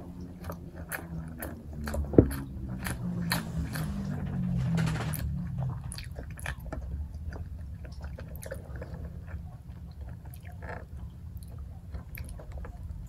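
Close-miked chewing and biting of ayam geprek (smashed fried chicken) and rice, eaten by hand, with many small wet mouth clicks. A single sharp, loud click comes about two seconds in, and the chewing is busiest between about three and five and a half seconds.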